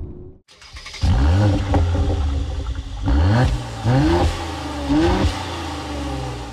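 Mercedes-AMG C43's 3.0-litre twin-turbo V6 revved in four short blips, about a second in and three more times, each rising and falling back to a steady idle.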